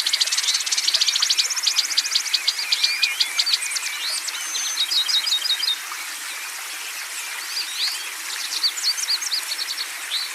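Songbirds chirping and trilling, several singing over one another in rapid series of sharp high notes. The singing thins out about halfway through into scattered short upswept calls.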